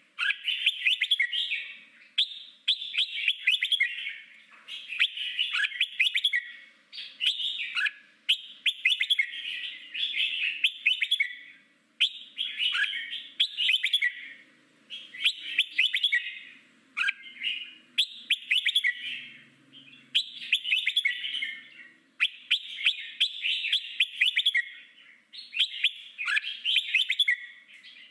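Red-whiskered bulbul singing its wild-style ('forest voice') song: quick, chattering phrases about a second long, repeated one after another with short breaks.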